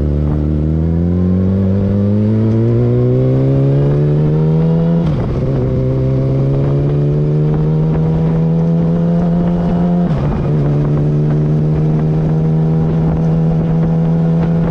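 Yamaha R6 inline-four engine through a Graves slip-on exhaust, pulling at low rpm: the revs climb and fall back with an upshift about five seconds in, climb gently again and fall with a second upshift about ten seconds in, then hold steady.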